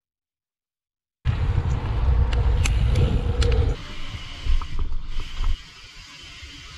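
Bike tyres rolling over wooden ramps and runways, a low rumble with sharp clicks and creaks from the boards and the bike. It starts suddenly about a second in and grows quieter after about four seconds.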